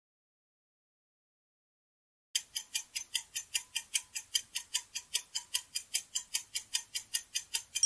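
Countdown-timer sound effect: a rapid, even clock ticking, about four to five ticks a second, starting about two and a half seconds in.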